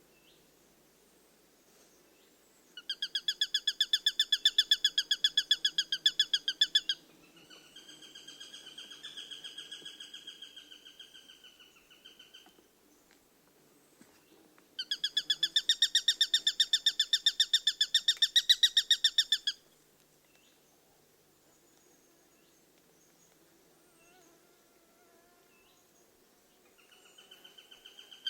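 Eurasian sparrowhawk calling: two long runs of rapid, sharp, high repeated notes, each lasting about four to five seconds, with a softer, smoother drawn-out call after the first run and a few faint notes before a new run begins at the end.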